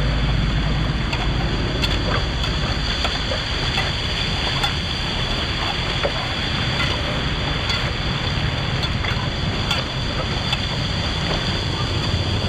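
Steady rush of flowing floodwater, with scattered small clicks and knocks.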